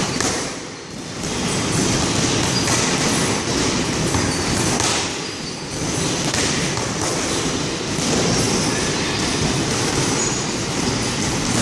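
Boxing gloves smacking against focus mitts in quick strikes, over a loud, steady rumbling noise that fills the whole sound.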